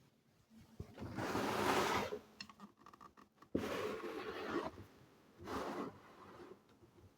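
Rubbing and scraping noises in three bursts, the second starting suddenly about three and a half seconds in; no motor is running.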